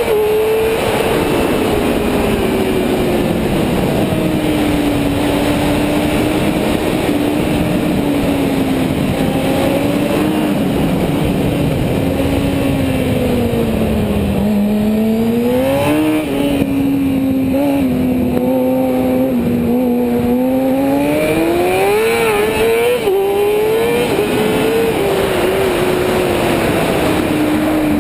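Sport motorcycle engine at racing revs, heard from the rider's helmet over steady wind noise. The pitch sinks as the bike slows into corners and climbs as the throttle opens again, with several quick rises and dips in the second half as the rider shifts gears.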